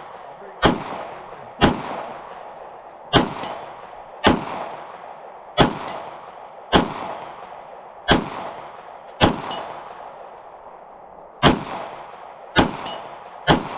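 Glock 17 9mm pistol firing about eleven single shots at a steady pace of roughly one a second, with a slightly longer gap about two-thirds of the way through. Each shot trails off in a long echo.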